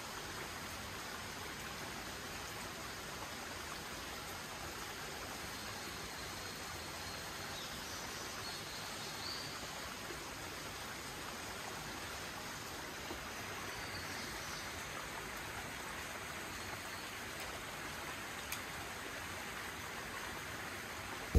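Heavy rain falling steadily: an even, unbroken hiss, with one faint click late on.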